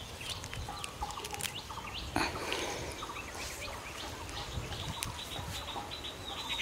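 Small birds chirping and twittering, with a fast, even trill through the second half and a single sharp snap about two seconds in.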